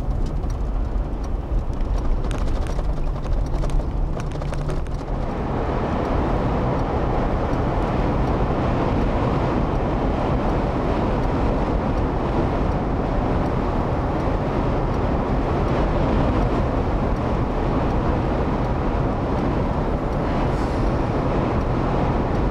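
Road and wind noise of a car driving at highway speed: a steady rushing hiss that grows fuller about five seconds in and then holds steady.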